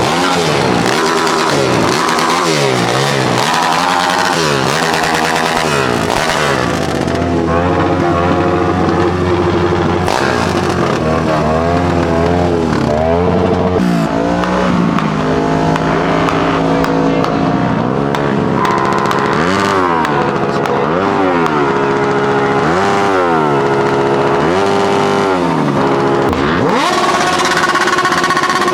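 Motorcycle engines revved again and again, each rev rising and falling in pitch, with stretches of steady idling between the revs.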